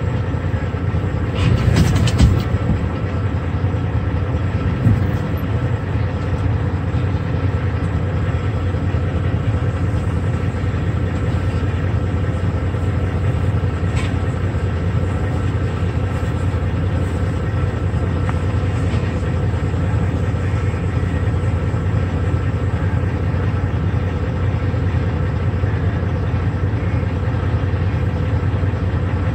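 Heavy diesel machinery running steadily, a low even drone heard from inside a log truck's cab, with a brief clatter about two seconds in.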